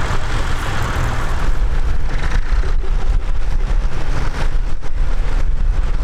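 Vintage tractor engine running steadily at a ploughing match, a continuous low rumble.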